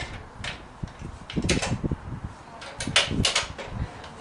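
Toughbuilt C700 all-steel folding sawhorse being handled and folded: a series of metal clacks and rattles in a few bunches, the loudest about three seconds in.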